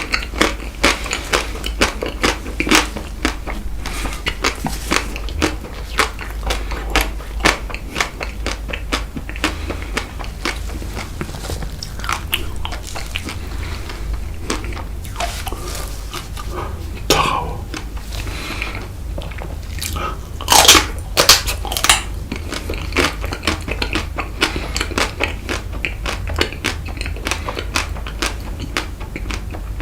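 Close-miked biting, crunching and chewing of Tico chocolate-coated ice cream, with many irregular crisp cracks and a run of louder bites about two-thirds of the way through.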